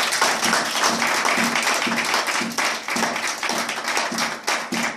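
Church congregation applauding, many hands clapping together with a steady beat about twice a second.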